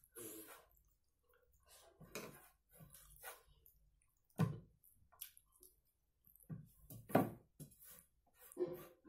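Close-up sounds of eating by hand: fingers working rice and mutton curry on a plastic plate, with wet chewing and lip smacks. The sounds come as short, irregular noises, loudest about four and seven seconds in.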